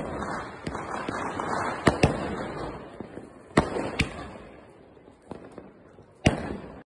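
A 60-shot aerial firework cake firing: about seven sharp bangs of shells bursting overhead, spaced a second or two apart with some in quick pairs, each trailing off before the next.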